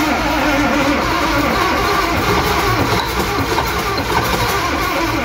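Starter cranking the 1954 Peterbilt's old diesel engine with ether sprayed into the intake. The engine fires unevenly and starts to catch, running on the ether rather than its own fuel and throttle.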